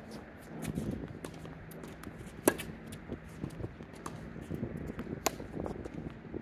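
Tennis rally on a hard court: sharp pops of racket strings striking the ball and the ball bouncing, the loudest about two and a half seconds in and another a little after five seconds, with lighter pops and shoe steps between, over a low steady hum.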